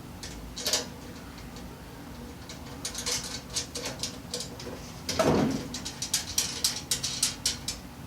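Clicks and taps from parts and hardware being handled while a tool cabinet frame is put together, in quick runs of about five a second, with one heavier knock about five seconds in.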